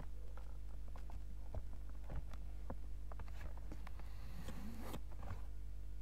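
Cloth rustling with scattered small clicks and knocks close to the microphone as a person moves and handles things. A longer rustle comes about four to five seconds in, over a steady low electrical hum.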